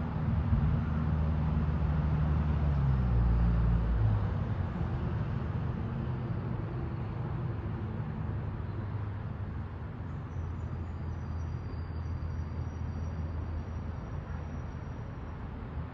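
A road vehicle's engine rumbling low as it passes, its pitch dropping about three to four seconds in and then fading to a softer drone. A steady hiss, most likely the flowing river, runs underneath.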